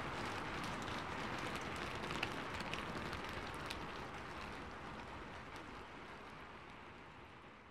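Steady rain falling, with scattered drops tapping, fading out about five seconds in.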